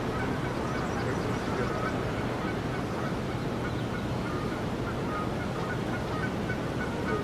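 Geese honking in short, scattered calls over a steady background rush.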